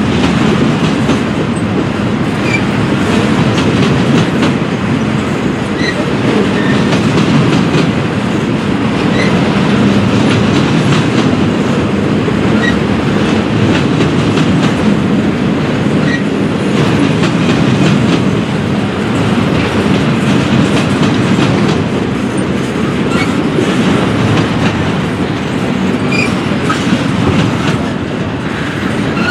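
Double-stack intermodal well cars rolling past: a steady rumble and clatter of steel wheels on rail, with faint scattered high ticks.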